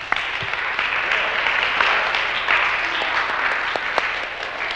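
A group of children applauding, many hands clapping at once.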